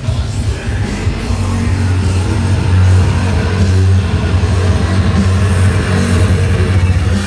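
Loud electronic bass music played live through a festival PA system, with a heavy steady bass line that settles in about a second and a half in.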